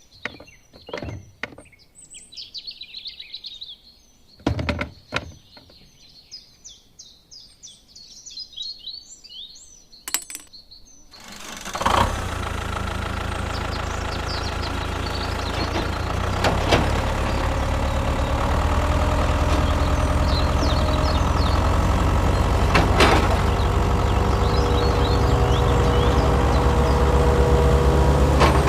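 Birds chirping, with a few sharp knocks. About twelve seconds in, a steady, loud engine-like running sound starts abruptly and carries on under the birdsong.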